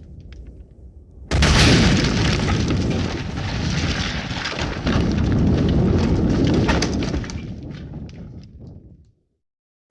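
Explosion sound effect: a sudden loud blast about a second in, followed by a long rumble full of sharp crackles, with a second surge about halfway through. It then dies away over a couple of seconds into silence.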